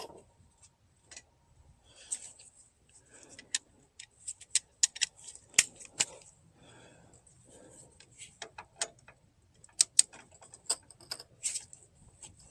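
Light, irregular metallic clicks and rattles of hand tools being handled while a torque wrench is set up for the wheel hub bolts.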